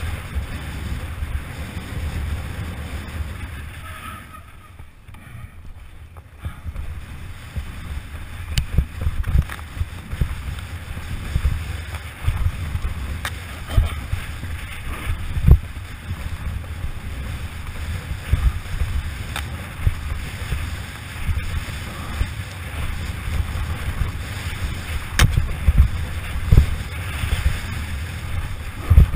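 Wind rushing over the microphone and mountain bike tyres rolling fast over a dirt trail, with frequent sharp knocks and rattles as the bike hits bumps. The rush eases for a couple of seconds about four seconds in.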